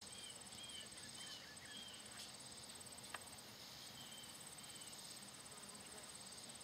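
Faint insects chirping: a fast, steady train of very high pulses. A few short sliding chirps come near the start and again about four seconds in, and there is a single click just after three seconds.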